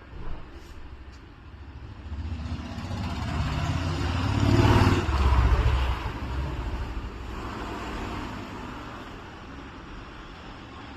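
A vehicle passing by: a rumble and road noise that build to a peak about five seconds in, then fade away.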